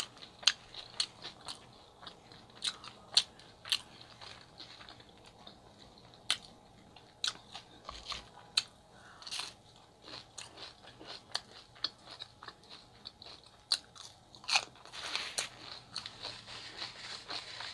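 Close-miked chewing of a homemade chicken gyro and fries: sharp, wet mouth clicks and smacks every second or so, with a louder, denser stretch of chewing about fourteen and a half seconds in.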